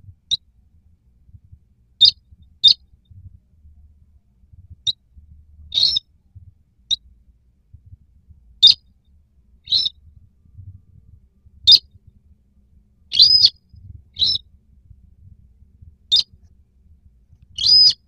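Calls of the sintar, a rice-field bird, as used for a lure: short high-pitched notes, one every second or two at uneven intervals, a few stretched into a brief rising-and-falling whistle.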